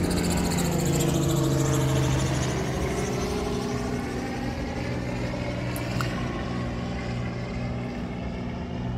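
Helicopter flying overhead: a steady drone of engine and rotor with a fast blade chop, its pitch sliding down a little in the first couple of seconds as it passes, then slowly getting quieter.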